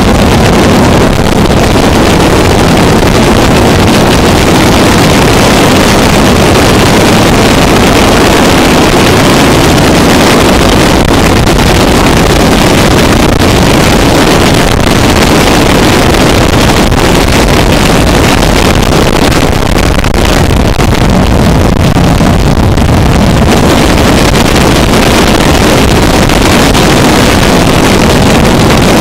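Harsh noise music: a loud, dense, unbroken wall of distorted noise, steady in level, with no beat, melody or voice.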